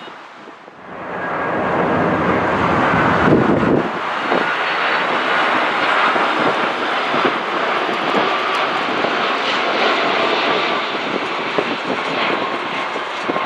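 Jet engines of a Boeing 747-400 on final approach: a loud, steady rush of engine noise with a faint whine in it, swelling in about a second in and holding.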